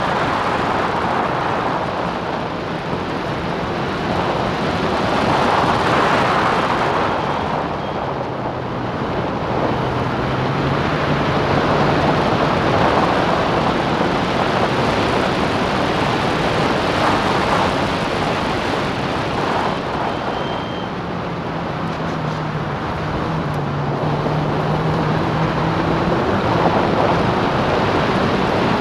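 Open-wheel Classic Clubman race car at speed, heard from a camera mounted on the car: a loud rush of wind buffeting the microphone over the engine. The engine note rises twice as the car accelerates.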